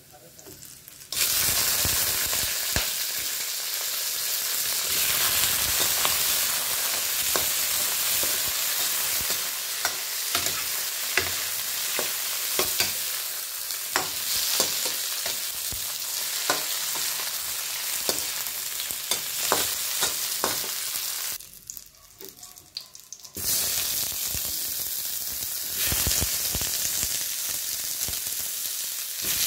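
Garlic and scallions, then sliced meatballs, sizzling in hot oil in a wok, with a metal spatula clicking and scraping against the pan as it stirs. The sizzle starts about a second in, drops away for about two seconds near the end, then comes back.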